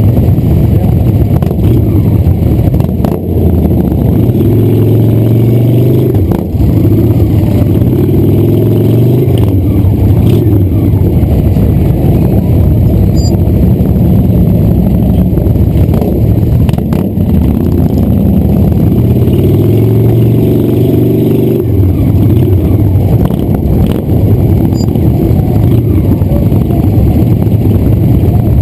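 Motorcycle engines running at low speed in slow street traffic, the camera bike's own engine loudest. The revs climb a few seconds in and again about twenty seconds in.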